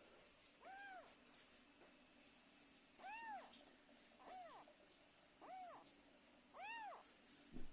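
Domestic cat meowing five times, short calls about a second or so apart, each rising then falling in pitch. A brief low thump comes near the end.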